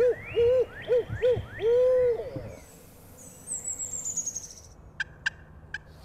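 A man's voiced imitation of a barred owl's hoot, several short hoots in a rhythm and a longer final note, used as an owl locator call to make roosted wild turkeys gobble. A small bird's high, descending trill follows, then three sharp clicks near the end.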